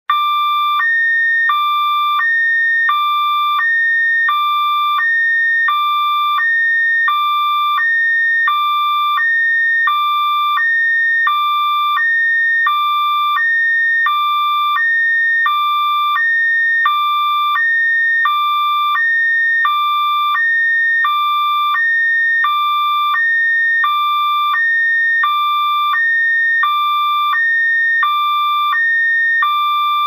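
Loud electronic two-tone alarm, switching back and forth between a lower and a higher steady pitch about once a second, repeating without pause.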